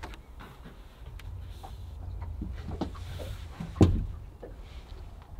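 Handling noise from a thin flexible solar panel being moved and pressed down by hand on a fibreglass deck: scattered light taps and knocks, with one louder thump a little before four seconds.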